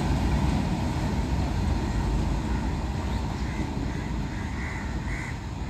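Goods train's wagons rumbling along the track, the sound slowly fading as the tail of the train draws away, with a few short high chirps near the end.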